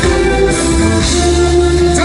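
Live band music: a steady bass under a long held note, with guitar in the mix.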